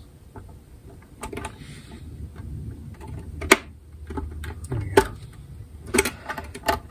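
Scattered sharp clicks and light scrapes of a thin metal blade being worked against a mandolin's wooden top and binding, the loudest about three and a half and five seconds in, over a low steady hum.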